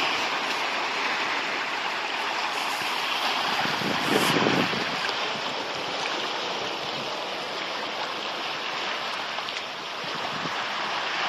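Small sea waves washing over a rocky shore: a steady hiss of moving water that swells briefly about four seconds in.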